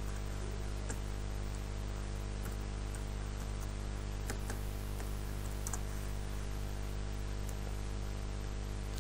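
A few faint, sparse computer keyboard keystrokes and mouse clicks as a word is typed slowly, over a steady low electrical hum.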